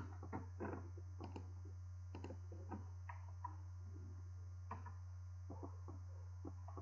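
Faint computer keyboard typing and mouse clicks, short irregular clicks scattered through, over a steady low hum.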